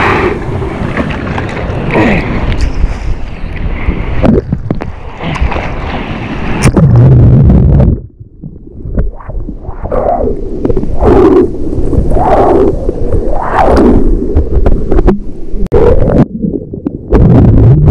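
Water sloshing and splashing over a camera's microphone in choppy surf, mixed with wind noise on the mic. About eight seconds in the sound drops suddenly, then comes back as a quick run of short surges.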